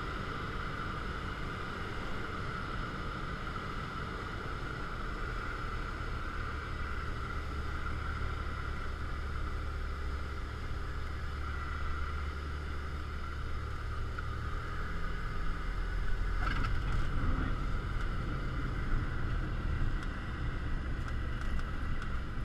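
Cockpit noise of a light single-engine propeller plane: the engine at low idle power with airflow noise through landing and rollout. A low rumble grows louder about two-thirds of the way in, with one brief sharp sound shortly after.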